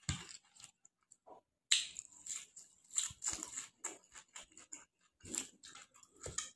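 Eating sounds: a man chewing rice and chicken with his mouth open, a string of short, irregular wet smacks and crunchy bites.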